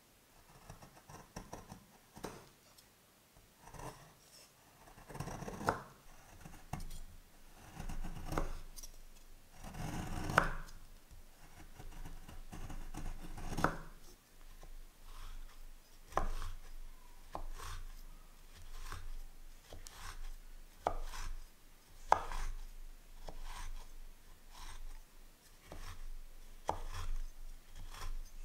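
Chef's knife shaving and chopping a block of white chocolate on a wooden cutting board: scraping strokes as the blade shaves the block, then sharp knocks of the blade on the wood, about once a second, as it chops the shavings finer.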